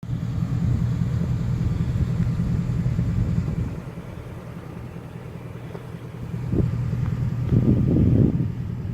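Vehicle engine idling with a steady low rumble that eases off partway through, then louder low rumbling bursts near the end.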